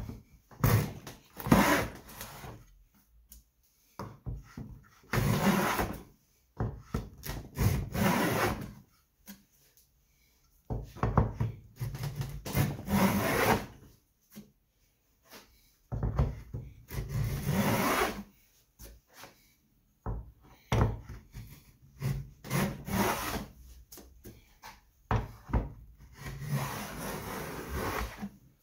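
Antique wooden plough plane cutting a groove along a board's edge: a series of push strokes, each a second or two long with short pauses between, the iron shaving the wood with a rough scraping sound.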